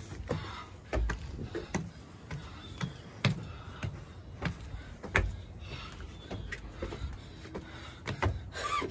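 Footsteps climbing wooden stairs: irregular knocks and thuds of shoes on the wooden treads, roughly one or two a second.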